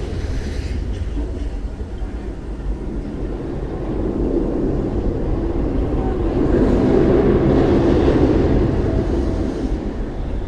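Themed sound effect of a giant lava-drilling machine: a continuous heavy mechanical roar. It swells louder for a few seconds midway, then eases back.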